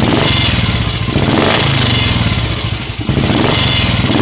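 Royal Enfield Bullet's old cast-iron single-cylinder engine running loudly and being revved, its carburettor freshly tuned with the mixture screw set to 1¼ turns out.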